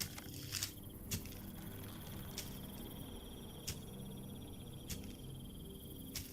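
Quiet nature ambience from an animated film's sound design: an insect trilling steadily, cricket-like, with a handful of scattered sharp clicks over a low hum.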